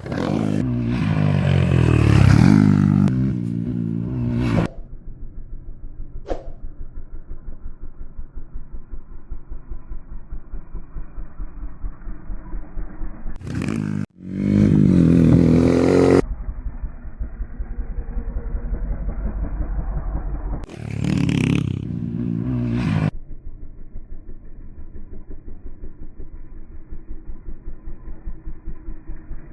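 Motocross bike engine revving hard in three bursts, the pitch rising and falling, at the start, about halfway through and near two-thirds in. Between the bursts, a quieter, muffled engine runs with an even pulse.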